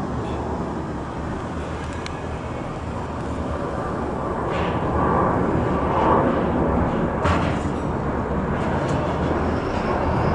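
Jet noise from a Boeing 737-800's twin CFM56 turbofan engines as it flies low overhead on approach with its gear down, a steady rumbling hiss that grows gradually louder.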